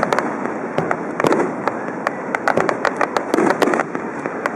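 Aerial fireworks going off in rapid succession: many sharp crackling pops, with fuller bursts about a second in and again past three seconds.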